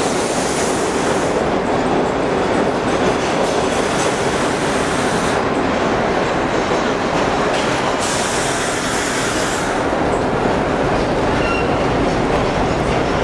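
Subway train running along an underground platform, mostly vintage R1-9 'Arnine' cars: a steady loud rumble and clatter of wheels on rail, with several spells of high wheel squeal.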